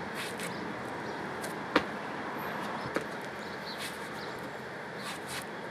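A parkour runner's shoes striking a wall: one sharp, loud landing about two seconds in and a lighter step about a second later, over a steady background hum of outdoor noise.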